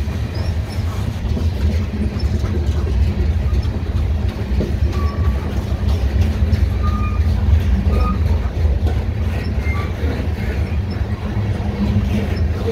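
Freight train of covered hopper cars rolling past close by: a steady low rumble of wheels on rail, with a few brief, faint high squeals now and then.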